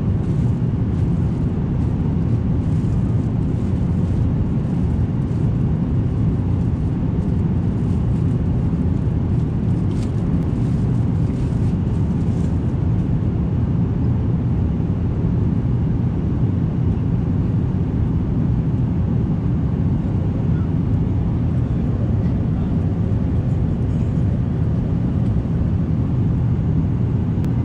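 Steady cabin noise inside an Airbus A350 airliner: an even low rumble of engines and airflow that does not rise or fall.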